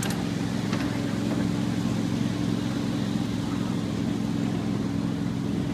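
Miniature ride-on train running along its track: a steady, even engine drone.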